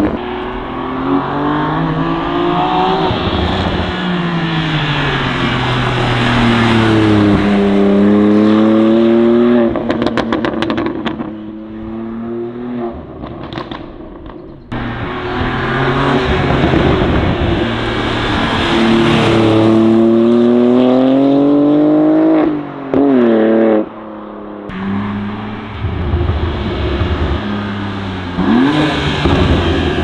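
BMW M2 G87's S58 twin-turbo inline-six running through a TFL Italy catback exhaust with its valves open, pulled hard through the gears: the pitch climbs, breaks at each upshift and climbs again, with a quick run of crackles as the revs fall about ten seconds in. The first pass echoes in a concrete parking garage and fades as the car moves off. After a sudden cut a second pass begins, the car accelerating toward the microphone through several upshifts.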